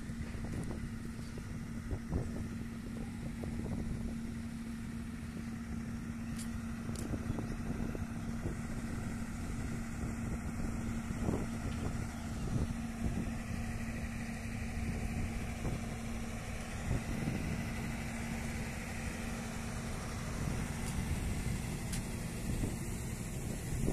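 Steady hum of running site machinery holding one even tone, with wind rumbling on the microphone and a few soft knocks.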